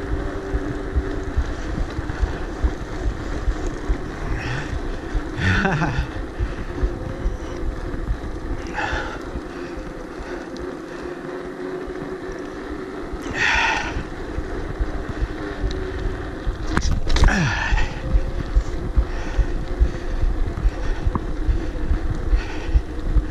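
Mountain bike in motion heard from the ride camera: steady tyre rumble and wind on the microphone, with a few short sharp noises and, in the last few seconds, regular knocks about twice a second.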